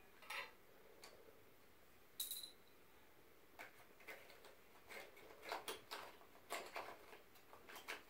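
Faint, scattered clicks and light taps of Crayola colored pencils knocking against each other and their cardboard box as a toddler pulls them out one by one. The clicks come more often in the second half.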